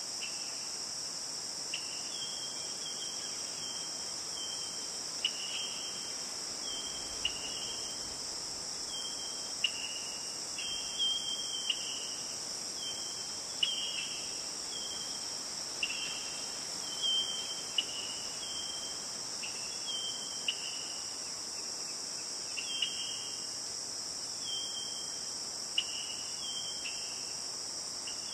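Steady high-pitched insect chorus, crickets, with short high chirps repeating every second or two.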